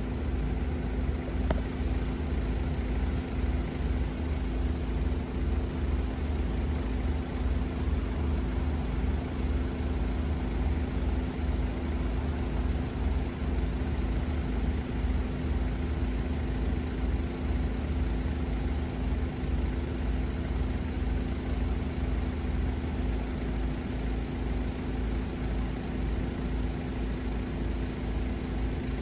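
Northern Ireland Railways Class 3000 diesel multiple unit idling while stopped at the platform: a steady low engine drone with a constant hum.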